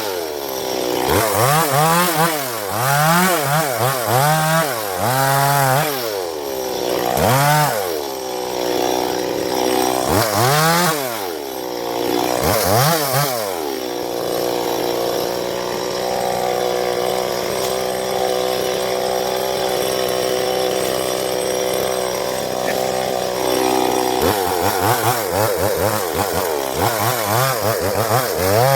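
Chainsaw engine revving up and down in repeated swells, then running at a steady pitch for about ten seconds before revving in short swells again.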